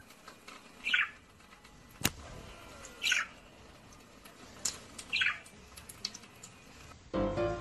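Budgerigar giving three short, falling chirps about two seconds apart while it is bathed under a trickle of tap water. There is a single sharp click about two seconds in.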